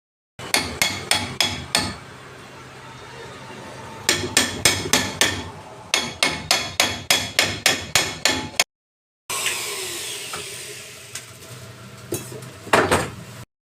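Runs of rapid hammer blows, about four to five a second, with brief pauses between runs. After a short break comes a steadier noisy stretch with one loud knock near the end.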